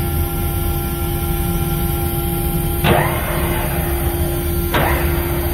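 Ship's machinery running with a steady hum and a few fixed tones. Two sudden rushes of noise come about two seconds apart, each fading within half a second.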